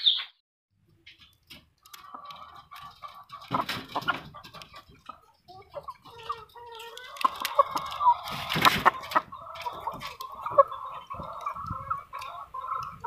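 A group of laying hens in a wire cage clucking, a steady run of short calls starting about two seconds in, with two brief louder noises around four and nine seconds.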